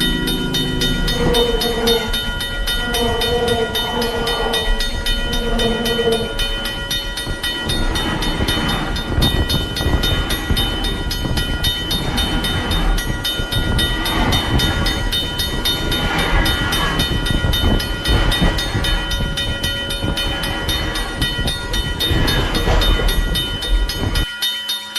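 Burlington Northern train horn sounding three short blasts in the first six seconds, then the train passing with a steady rumble and wheel noise. A railroad crossing bell rings rapidly throughout. The sound cuts off suddenly near the end.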